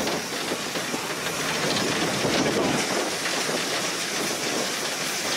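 Steam locomotive 434.2186 heard from inside its cab, rolling slowly: a steady hiss of steam with the running noise and rattle of the engine over the track.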